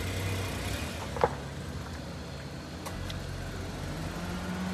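Car engine idling steadily, its pitch stepping up slightly near the end, with one sharp click about a second in.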